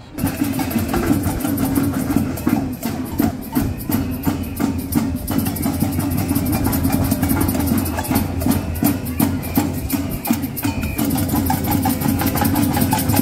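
Band music with heavy drumming: dense, rapid percussion hits over a strong low accompaniment, starting abruptly.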